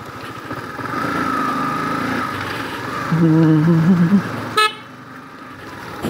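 Yamaha YZF R15 v2's single-cylinder four-stroke engine running as the motorcycle rides slowly along a lane, with a loud wavering pitched sound about three seconds in. A short horn toot sounds about four and a half seconds in, and the engine sound drops right after it.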